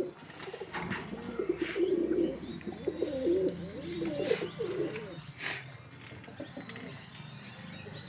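Domestic pigeons cooing: a run of low, warbling coos over the first five seconds or so, with a few sharp clicks among them, then quieter.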